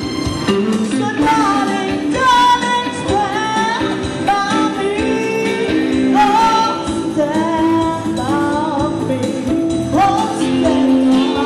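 A female singer singing a Lao pop song with a live band, the melody held in long wavering notes over sustained electric guitar and keyboard chords.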